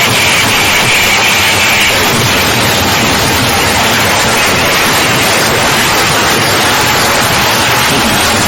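Loud, steady rushing noise like static, holding an even level throughout.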